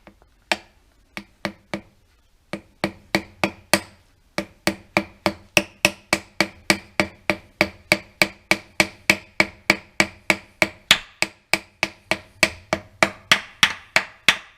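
Hammer tapping a timing-pin blanking seal into the engine block, each tap with a short metallic ring. A few spaced taps come first, then a steady run of about four taps a second from about four seconds in.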